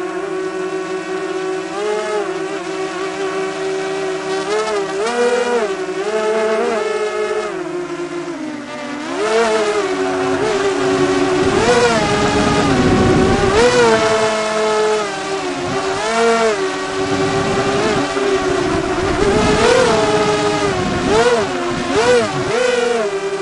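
Multirotor drone's electric motors and propellers whining steadily, the pitch wobbling up and down as the throttle changes. From about nine seconds in the whine grows louder and rougher as the drone climbs.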